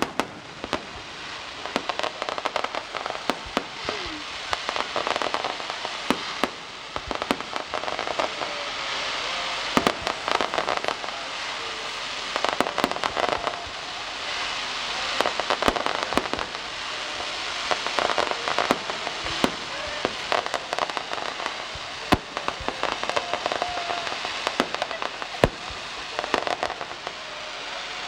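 Fireworks display going off continuously: a dense, irregular string of sharp bangs and crackling shells, many reports a second.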